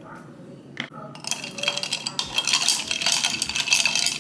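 A metal spoon stirring iced coffee in a glass, rapid clinking against the glass and the ice cubes, starting about a second in.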